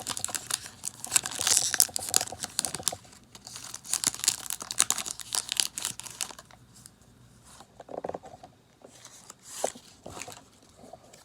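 Foil wrapper of a Pokémon Sun & Moon booster pack crinkling and tearing as it is opened by hand: dense crackling for about the first six seconds, then fainter scattered rustles of the wrapper and cards.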